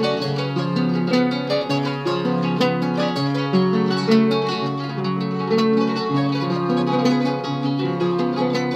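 Two nylon-string criolla guitars playing an instrumental introduction together, picked melody notes over a steady bass line, as the accompaniment to a payada before the singing begins.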